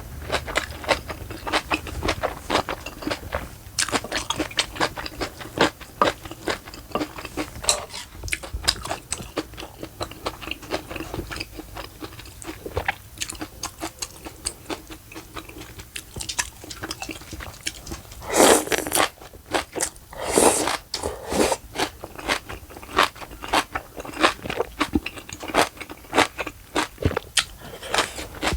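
Close-miked eating sounds: steady chewing with wet clicks and crunches of food in the mouth. Two louder, longer noisy sounds come about eighteen and twenty seconds in.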